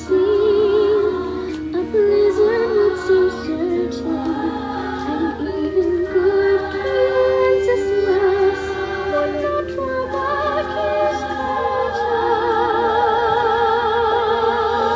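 A sung song over musical accompaniment, with long held notes that waver with vibrato.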